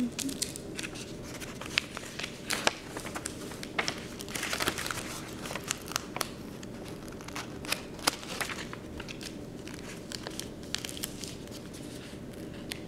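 Clear adhesive tape being peeled off stacked paper photo prints, with the sheets crinkling: irregular sharp crackles and snaps, busiest about four to five seconds in.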